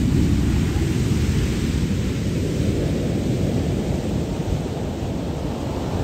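Ocean surf breaking and washing up a beach, under a heavy low rumble.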